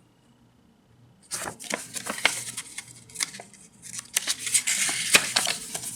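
Paper rustling and crisp clicks as the pages of a small instruction manual are handled and turned, starting about a second in and going on in busy spurts.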